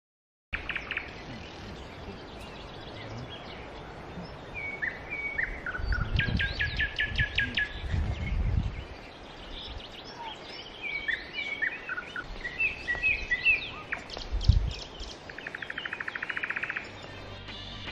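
Several songbirds singing: varied whistled phrases and chirps, then a fast, even trill near the end. A few low rumbles come through partway in.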